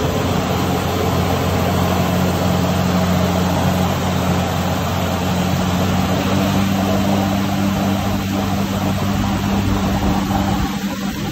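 Jet ski engine running steadily at speed while towing, with the rush of its wake and spray churning the water.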